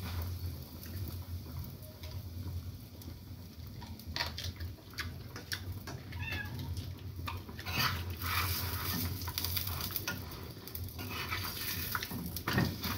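A pet cat meowing faintly in a home kitchen, over scattered light clicks and knocks of kitchen work and a low steady hum.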